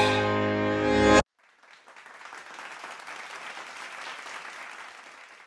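Dance-pop song cuts off abruptly about a second in; after a short pause, applause starts and then dies away near the end.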